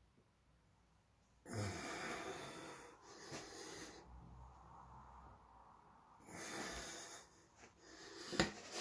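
A man's heavy breaths, exhaled hard while he holds muscle-flexing poses: one long rush of breath starting about a second and a half in, a second one about six seconds in. A sharp click near the end.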